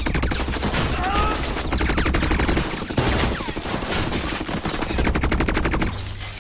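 Rapid automatic gunfire from a futuristic assault rifle: a dense, unbroken stream of shots, mixed with impacts and flying debris. It dies away about six seconds in.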